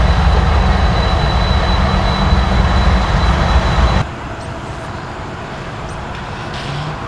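Freight train cars rolling past close by: a heavy, steady rumble with a thin, steady high whine over it. About four seconds in it cuts abruptly to a quieter, more distant train rumble as CSX diesel locomotives approach.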